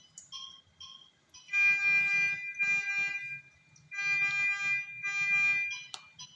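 Electronic medical equipment alarm beeping: short repeated beeps, then longer held alarm tones lasting up to about a second each, with a sharp click near the end.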